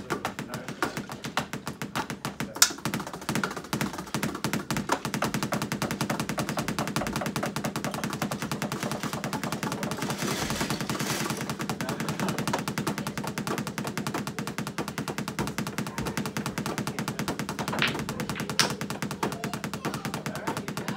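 Drumsticks beating fast and continuously on an electronic drum kit's pads and rubber cymbal pads, heard as a dense clatter of dull clicks and knocks rather than drum tones, since the kit's sounds go to the player's headphones. A couple of sharper, louder hits stand out, one a few seconds in and one near the end.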